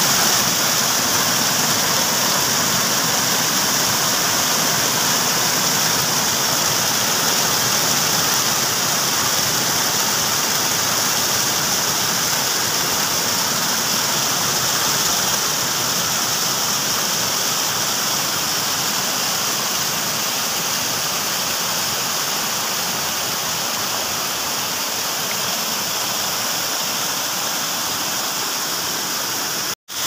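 Water rushing and splashing in a small river or stream, a loud, steady hiss of running water.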